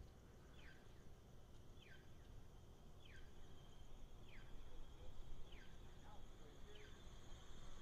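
Very quiet outdoor ambience with a faint high-pitched steady hum and a faint short falling chirp repeating evenly, six times, about once every second and a quarter.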